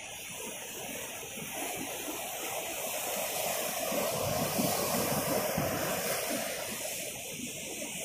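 Ocean surf breaking and washing on a beach: a rushing wash that swells to a peak about halfway through and eases off near the end.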